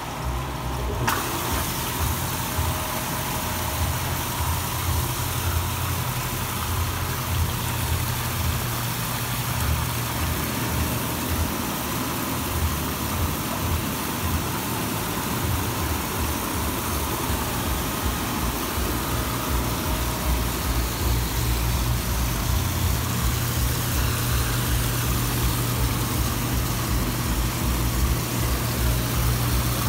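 Artesian Spas South Seas 748B hot tub with its jets running: rushing, churning water over a steady low hum from the pump, setting in about a second in.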